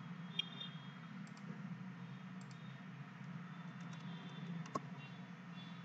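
Faint computer mouse clicks, the two sharpest about half a second in and near the end, over a steady low hum.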